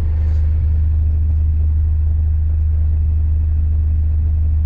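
Fischer Panda marine diesel generator running steadily under charging load, a loud, even low rumble.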